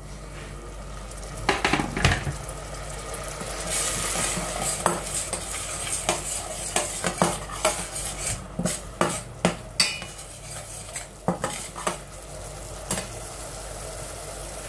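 A slotted metal spatula stirring and scraping spice paste in a stainless steel pot, knocking metal on metal many times, from about a second and a half in until near the end. Under it the masala sizzles steadily as it cooks down with a little water.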